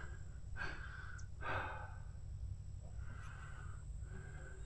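A man's slow breathing close to the microphone, four or five soft breaths about a second apart, over a low steady rumble.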